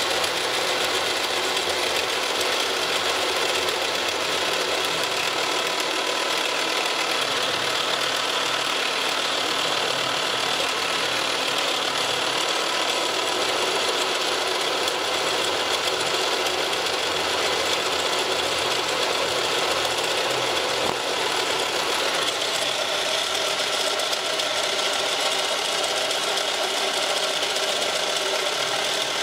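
Mill-drill running with an end mill in a Jacobs chuck cutting into a plastic block, a steady machining whine with continuous cutting noise. The sound changes slightly about three-quarters of the way through.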